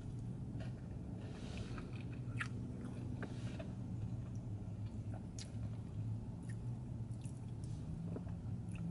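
Close-up chewing and biting of chicken wings, with scattered small wet clicks and crunches, over a steady low hum.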